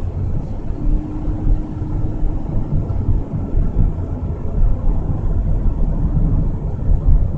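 Steady low rumble of a car in motion, heard from inside the cabin: tyre, engine and wind noise while driving along a road.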